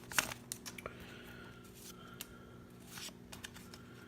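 Pokémon trading cards being handled: light rustles and scattered soft clicks as cards are slid and shuffled, with a few sharper ticks near the start and around two and three seconds in.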